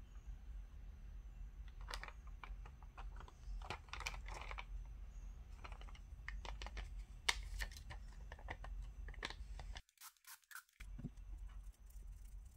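A stiff clear plastic sheet of dual nail forms crinkling and crackling as it is bent and handled, in an irregular run of short crackles, over a low steady hum. The sound drops out briefly near the end.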